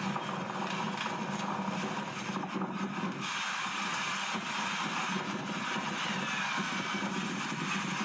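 Transport truck on the move: its engine running with a steady low hum under even road and water noise.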